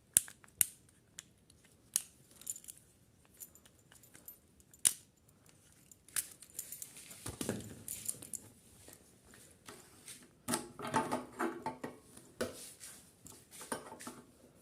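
Sharp metallic clicks from a motorcycle lock set and hand tools being worked by hand, followed from about halfway by scraping and rattling of small metal parts.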